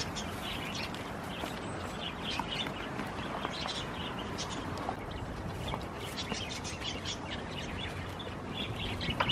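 Small birds chirping and twittering again and again over steady outdoor background noise.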